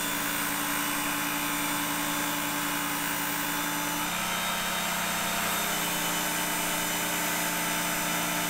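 Work Sharp belt-type electric knife sharpener running steadily, its small motor humming and its abrasive belt hissing as a fillet knife blade is drawn through the guides. The hum shifts slightly in pitch about four seconds in.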